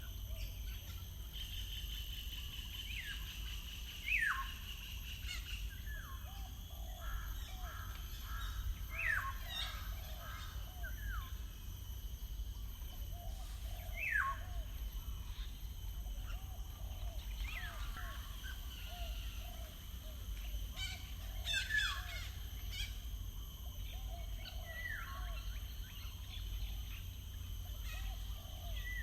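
Several wild birds singing and calling: sharp falling whistles every few seconds among many short quick chirps, over a steady low rumble.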